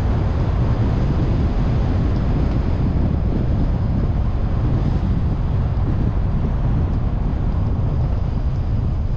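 Car driving along a road: a steady low rumble of road and engine noise with wind noise on the microphone.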